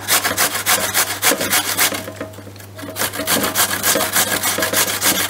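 Peeled raw potatoes being grated by hand on a metal grater into a stainless steel pan: quick rasping strokes, about five a second, with a short pause about two seconds in.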